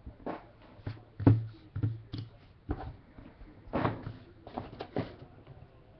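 Cardboard jersey box and its packaging being handled and opened: irregular knocks and rustles, the loudest about a second in.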